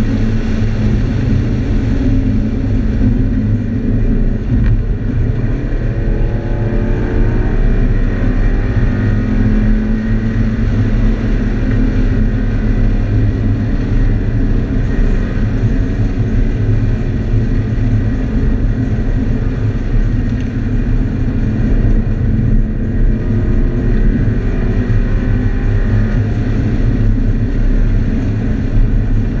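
Scion FR-S's 2.0-litre flat-four engine running hard on track, heard from inside the cabin, its revs rising and falling as the car accelerates and slows through the corners, over steady road and wind noise.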